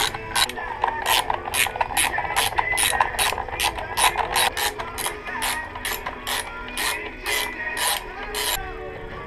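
Socket ratchet clicking as it winds a bolt on the scooter's plastic bodywork, a steady train of about two to three clicks a second that stops shortly before the end.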